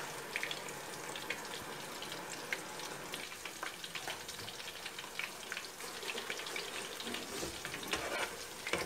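Ground-meat balls frying in oil: a steady sizzle with many small scattered crackles and pops.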